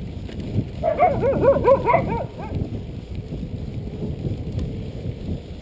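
A dog barking in a quick run of about six short barks, over the low rumble of wind and a mountain bike riding along a dirt road.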